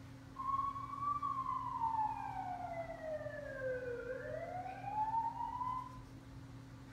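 A child's voice holding one long, high-pitched, siren-like cry for about five and a half seconds, sliding slowly down in pitch and then back up before stopping.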